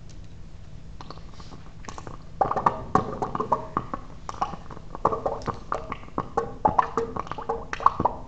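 Gas bubbles of acetylene and chlorine bubbling and popping as they ignite in a water-filled glass cylinder: a rapid, irregular string of sharp pops and crackles that starts about two and a half seconds in.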